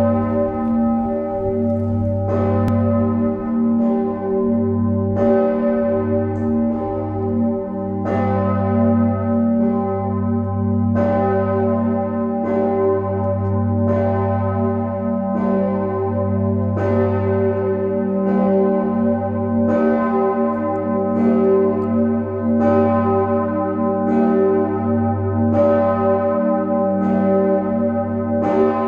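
The Leipzig Nikolaikirche's bell no. 1, 'Osanna', tuned to g°, ringing alone. Its clapper strikes evenly about every one and a half seconds, and each stroke rings out over a deep, continuous hum.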